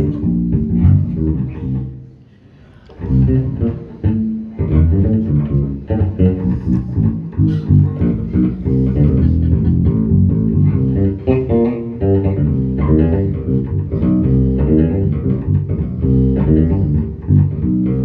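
Live jazz band playing, led by an electric bass guitar in a run of quick plucked low notes, with a brief pause about two seconds in.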